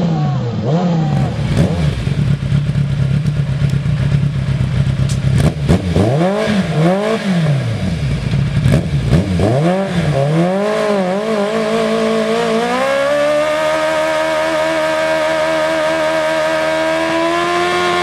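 Engine with a loud exhaust being revved in quick blips, settling to a steady idle between them, then held at high revs from about two-thirds of the way in, its pitch creeping up toward the end.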